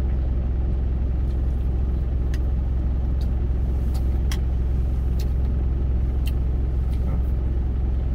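Truck engine idling, a steady low rumble heard inside the cab, with a few light clicks from eating with chopsticks out of a steel lunch container.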